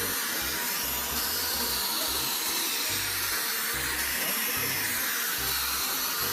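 Background music with a low, pulsing bass line under a steady hiss.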